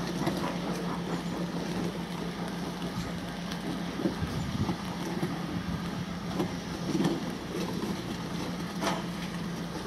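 Steam locomotive working slowly, with scattered knocks and exhaust noise over a steady low hum.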